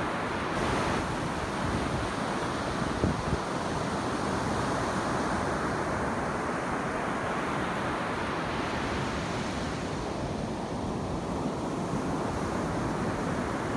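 Ocean surf breaking and washing up a sand beach, a steady rush of waves, with wind on the microphone. A brief knock about three seconds in.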